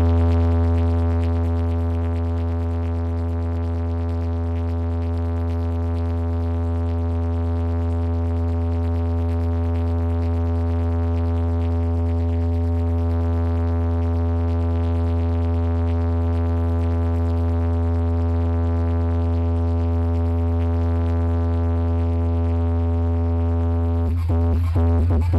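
A long, steady, bass-heavy electronic tone with many overtones, played through large DJ bass speakers as a speaker check. It is held unbroken until near the end, where it breaks into rapid pulsing beats.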